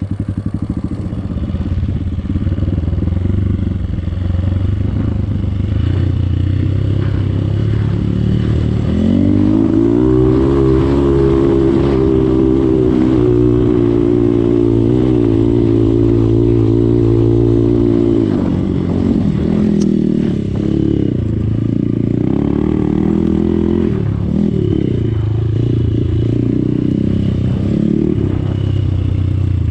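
Trail motorcycle engine pulling under load over rough ground. The revs hold steady and high for several seconds in the middle, then rise and fall as the throttle is worked.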